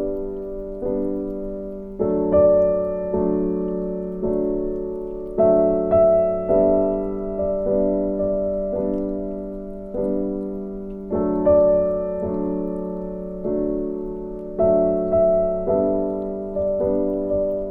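Soft background piano music: gentle chords struck about every second, each note fading away.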